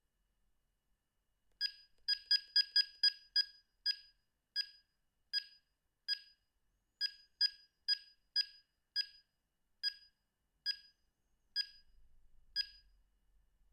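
Sony CM-H777 mobile phone's key beeps: about two dozen short, identical high beeps. A quick run comes near the start, then slower, unevenly spaced beeps, as buttons are pressed one at a time.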